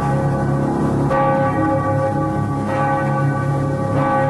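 A large bell tolling, struck about three times with each stroke ringing on into the next.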